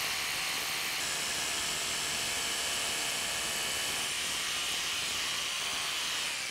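Cordless drill running steadily, boring a quarter-inch bit through a pre-drilled hole in a steel egress window frame.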